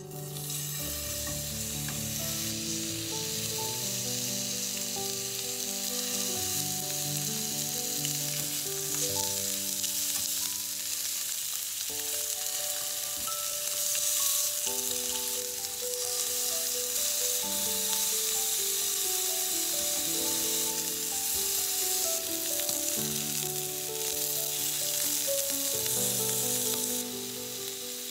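Lamb chops sizzling steadily as they sear in hot oil in a nonstick frying pan, over background music.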